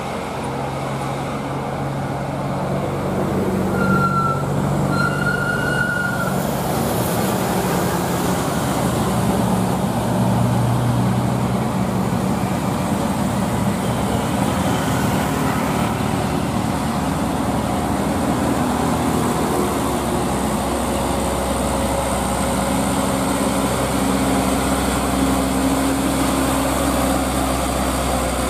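Mitsubishi Fuso Canter dump truck's diesel engine pulling steadily up a steep incline under a full, tarped load, its low drone shifting a little in pitch. Two short high-pitched beeps sound about four and five seconds in.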